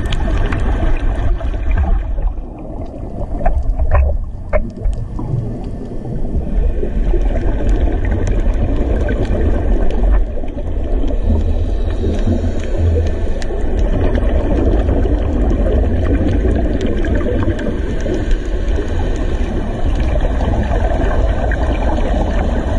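Underwater recording: a steady low rumble with the bubbling of a scuba diver's exhaled breath from the regulator.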